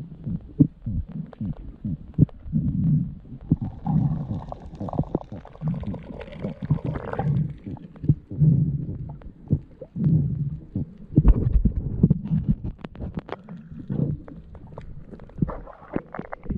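Muffled underwater sound recorded through a camera's waterproof housing on a reef dive: low rumbling pulses of water movement about once a second, with many scattered sharp clicks.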